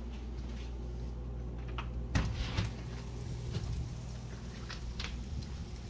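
Back door being unlocked and opened: clicks from the deadbolt and knob, a louder knock about two seconds in, then a few lighter knocks and clicks over a steady low hum.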